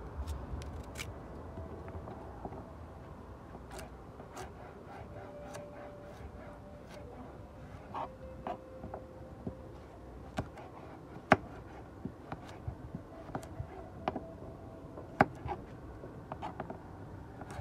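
Scattered light clicks and knocks of hands handling things while food is prepared, two sharper knocks standing out in the second half, over a low steady background.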